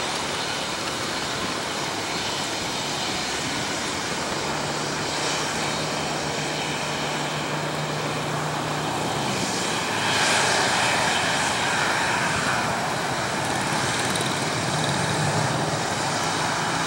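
Embraer E190 airliner's twin GE CF34-10E turbofan engines running at taxi power as the jet lines up for takeoff: a steady jet whine and rush of air. It grows a little louder and brighter about ten seconds in, as the aircraft swings onto the runway with its engines facing the microphone.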